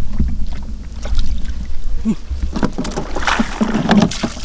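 Shallow water splashing and sloshing in irregular bursts, over a steady low rumble.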